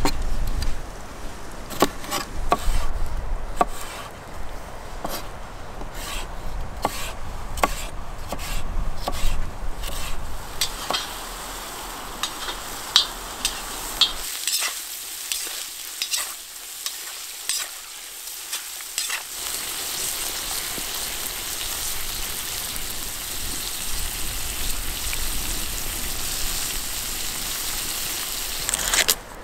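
Chunks of meat frying in a cauldron, a steady sizzle through the second half. Sharp clicks and scrapes of a utensil against the pot come in the first half as the meat is stirred.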